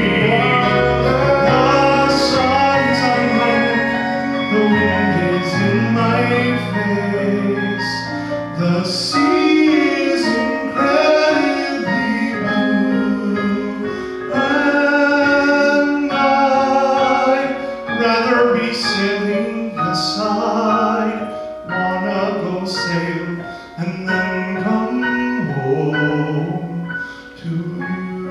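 A man singing a musical-theatre song at a microphone, accompanied by an electric keyboard playing in a piano sound, in sustained sung phrases.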